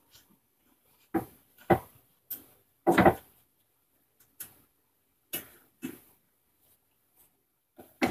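Spatula scraping and knocking against a nonstick pan while stirring roasting semolina, about a dozen separate strokes at irregular intervals, the loudest about three seconds in.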